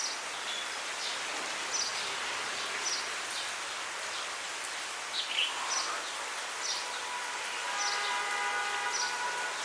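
Steady monsoon rain falling, with a small bird's short, falling chirps repeated about once a second. Near the end a faint held tone with several pitches sounds for about a second and a half.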